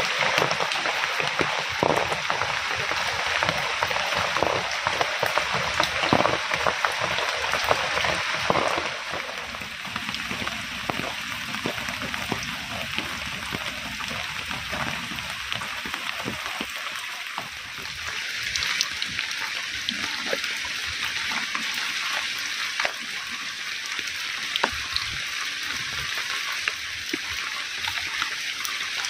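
Heavy rain falling, with many separate drops striking surfaces. It gets quieter about nine seconds in.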